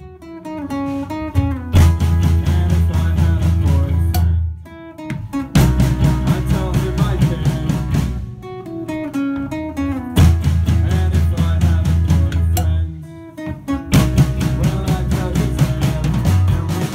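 Live indie band playing: acoustic guitar, bass guitar and drum kit. The full band drops out briefly about every four seconds, leaving only a few held guitar notes before it comes back in.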